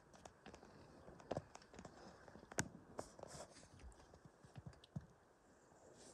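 Near silence with faint, scattered clicks and rustles; the sharpest click comes about two and a half seconds in.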